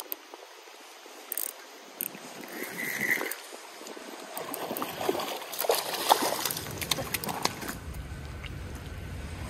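Fishing reel being cranked to bring in a hooked channel catfish, with irregular clicks and rattles from the reel and line. Wind buffets the microphone toward the end.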